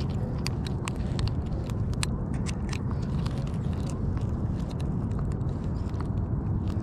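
Irregular sharp clicks and scrapes of metal pliers working a hook out of a rockfish's mouth, over a steady low rumble.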